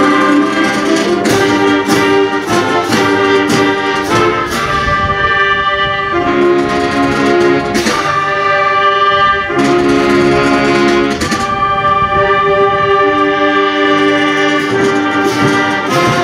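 Junior high school concert band playing: full wind-band chords from brass, saxophones, clarinets and flutes, with percussion strokes through the first few seconds, then held chords that change every second or two.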